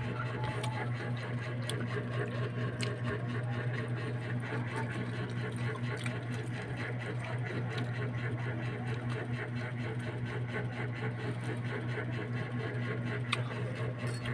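A small motor running with a steady low hum and a fast, even rattle, with a few faint clicks.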